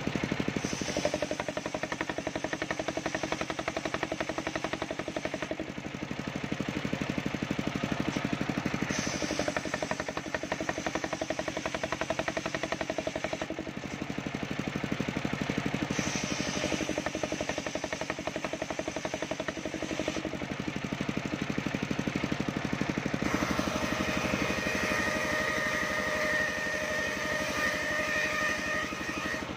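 Engine-driven circular saw bench ripping waru wood into battens: the engine runs steadily throughout, and the sound changes each time a board is pushed through the blade, about every seven seconds.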